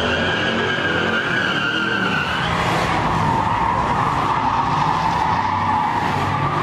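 Car doing a burnout: the rear tyres squeal steadily over the running engine, and the squeal drops in pitch about two seconds in.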